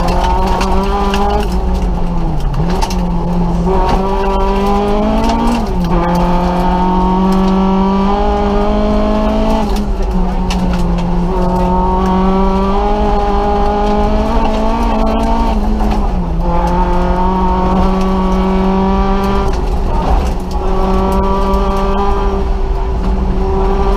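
Nissan Micra rally car's engine heard from inside the cabin, running hard at high revs: its pitch climbs and then drops sharply with each lift or gear change, about five times, roughly every four to six seconds. Steady tyre and road noise runs underneath.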